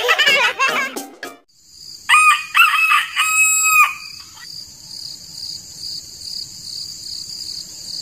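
Rooster crowing: a few short notes, then a longer drawn-out note, over a steady high-pitched chirring background. The first second holds the end of background music.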